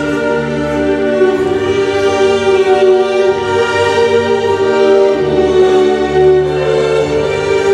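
Orchestral waltz music with strings, playing long held chords and melody lines.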